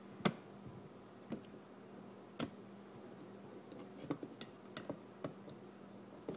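Small irregular metal clicks and ticks of a screwdriver and screws being tightened into a carburetor from a 1975 Johnson 70 hp outboard, about a dozen in all, the loudest near the start.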